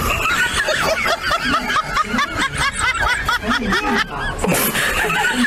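High-pitched snickering laughter: a quick run of squeaky rising-and-falling notes, several a second, with a short break near the end.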